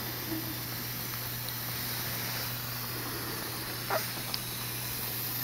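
Steady hiss with a constant low hum, typical of a neonatal incubator's air supply. About four seconds in there is a brief rising squeak, then a faint click.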